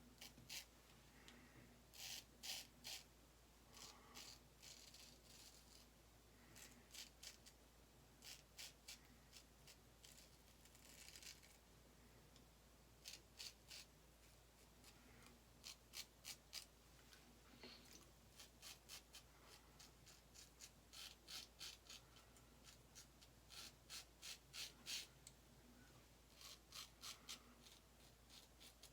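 Autostrop safety razor cutting through lathered beard stubble in short, quick strokes, faint and scratchy, coming in runs of several strokes with short pauses between them.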